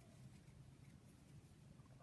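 Near silence: room tone with a steady faint low hum.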